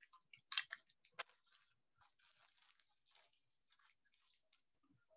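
Clear plastic bag crinkling as it is handled, with a few louder rustles in the first second or so, then faint crackling.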